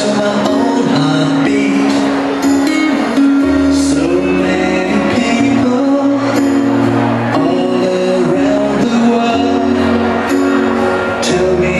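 Pop song with singing over a steady beat, played for a line dance.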